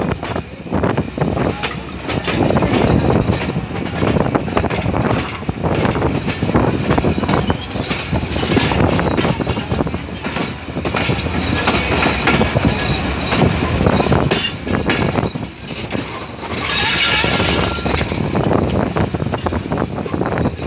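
Coaches of the Khyber Mail passenger train rolling past as it departs, wheels clacking over the rail joints in a dense, uneven rattle. A brief high squeal from the wheels comes about 17 seconds in.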